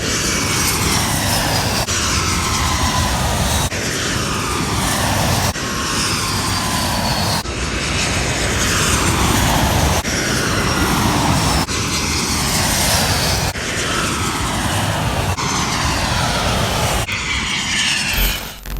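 Airplane engine noise passing by with a falling pitch, cut into a string of short segments that each restart about every two seconds.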